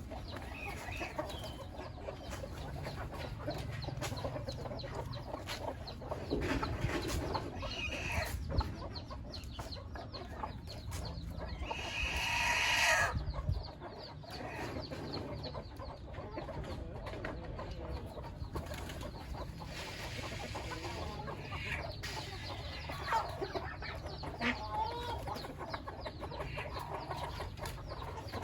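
Flock of chickens clucking, with scattered short calls. About halfway through, one louder, harsher sound builds for about a second and a half and cuts off suddenly.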